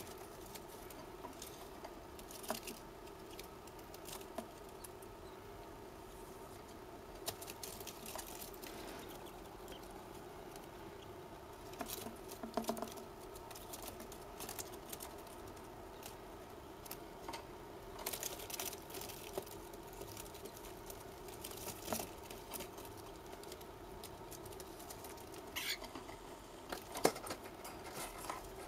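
Light scratching, rustling and clicking patter of a cockatiel chick shifting about, over a steady low hum.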